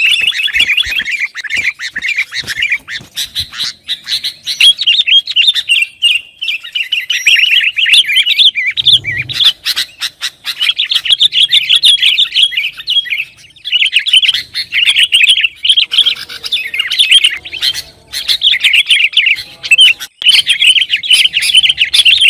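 Sooty-headed bulbul (kutilang) calling loudly and persistently in fast, chattering runs of notes. The calls come in bout after bout, with brief pauses between them.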